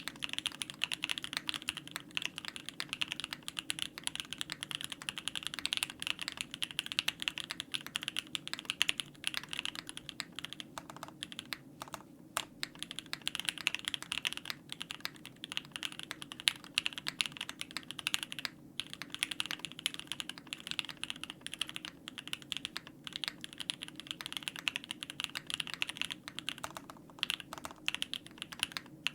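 Steady typing on a Monokei Kei mechanical keyboard: lubed and filmed JWK Moss linear switches on an aluminium plate with PBT keycaps and foam-dampened case, keystrokes clacking in quick runs with a few brief pauses.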